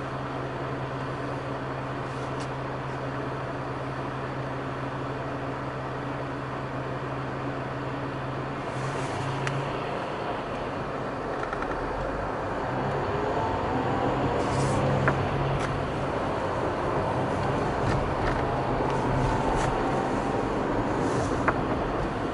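Car engine idling with a steady hum while the car waits in traffic, then the car pulls away about eight seconds in and drives on, the engine note rising as it speeds up, with tyre and road noise.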